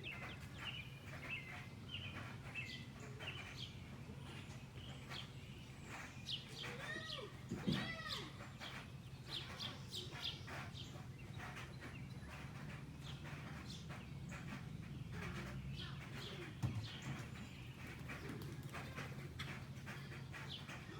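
Backyard songbirds chirping, many short high calls all through, with a louder run of arched calls about seven to eight seconds in. A steady low hum runs underneath.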